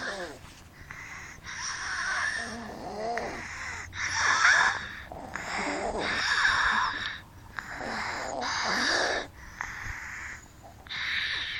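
People snoring: about five wheezy, rasping snores, each lasting one to two seconds, with short pauses between them.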